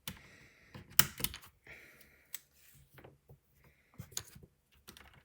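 Plastic keycaps being pressed onto the brown switches of a Ducky mechanical keyboard: a handful of irregular clicks and clacks, the loudest about a second in, with faint handling rustle between them.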